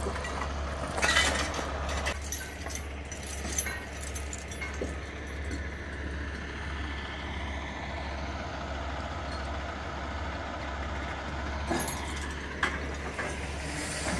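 Big diesel truck engine idling steadily, with a steel chain clinking and rattling about a second in as it is dragged over the trailer deck, and a few more metal clinks near the end.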